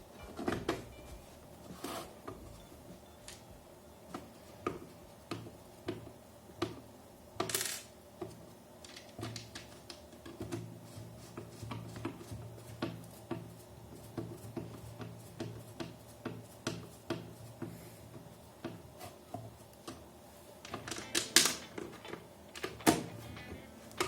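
Small metallic clicks and taps of a screwdriver and screws as a wall clock's back is screwed in place, irregular throughout, with a few sharper clinks near the start, in the middle and near the end.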